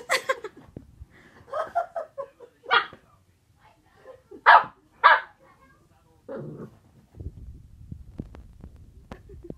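Boxer puppy barking in short, separate barks, the two loudest about four and a half and five seconds in, with a lower, deeper bark around six seconds. A low rumbling rustle follows in the last couple of seconds.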